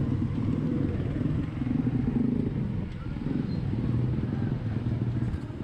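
Small motorcycle engine running steadily at low speed.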